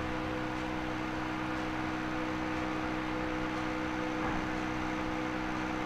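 Steady hum and whir of an electric fan running, with several constant tones underneath.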